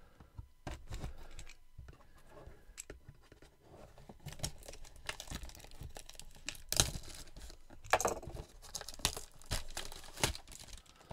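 Trading-card packaging being handled and torn open: irregular crinkling of foil pack wrappers and cardboard, with a couple of louder tears about seven and eight seconds in.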